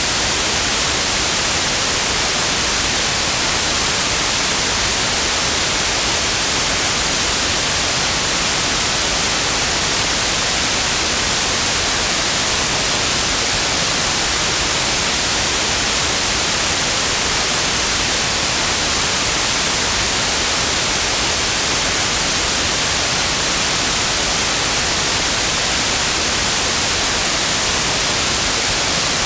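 Steady, unchanging white noise: an even hiss, strongest in the high treble.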